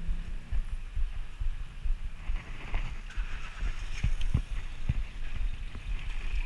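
Riding a bicycle over a rough street: wind buffeting the microphone, with the bike rattling and several sharp knocks around the middle as it goes over bumps.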